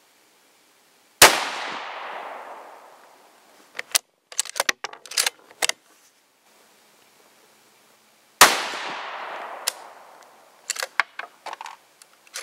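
Two rifle shots from a Remington 700 5R bolt-action in .223 Remington, about seven seconds apart, each ringing out and dying away over about two seconds. A quick run of metallic clicks follows each shot as the bolt is worked to eject the spent case and chamber the next round.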